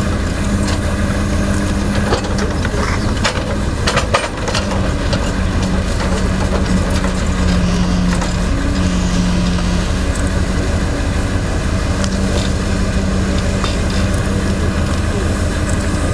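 Heavy diesel machinery running steadily, with a low engine hum whose pitch wavers slightly as the load changes. A few sharp knocks come about two to four seconds in.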